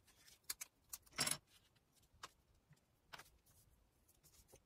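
Light handling sounds of a paper pattern piece being positioned on fabric: a short rustle of the paper about a second in, with a few faint clicks and taps of fingers and a pen on the table.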